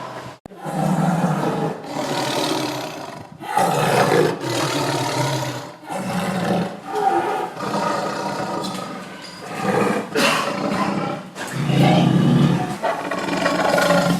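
Tiger roaring again and again: a series of loud roars, each a second or two long, with short breaks between them.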